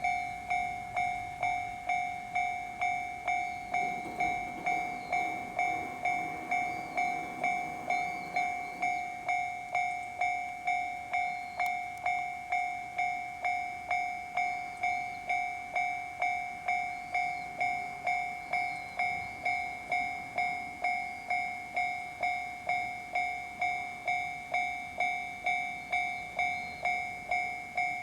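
Japanese railway level-crossing warning bell ringing in an even rhythm of a little under two strikes a second, each strike holding two pitches. It is the signal that a train is approaching and the crossing is closing.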